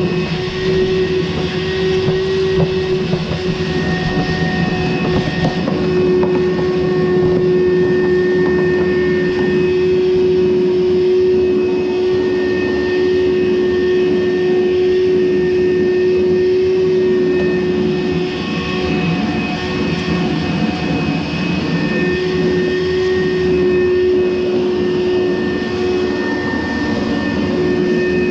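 Frigidaire FDE648GHS0 electric clothes dryer running: a steady motor and drum hum with a held whine over a low rumble.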